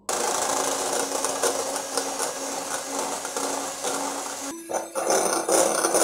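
Orpat electric hand mixer running, its twin beaters whipping chilled non-dairy cream in a glass bowl. The steady motor hum jumps to a higher pitch after a brief break about four and a half seconds in.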